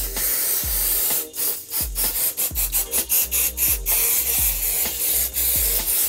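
Aerosol can of 505 temporary fabric spray adhesive hissing as it is sprayed onto a terry towel: one long burst at the start, shorter bursts in the middle, and another long burst near the end. Background music with a steady beat runs underneath.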